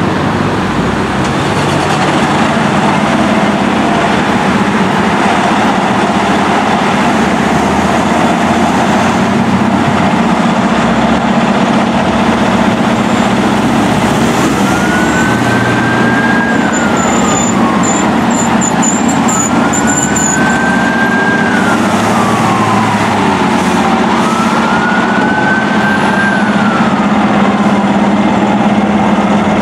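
Fire truck's Federal Signal e-Q2B electronic siren giving three slow wails about five seconds apart, starting about halfway in, each winding up, holding and coasting down like a mechanical siren. Underneath, a fire truck's diesel engine idles steadily with passing street traffic.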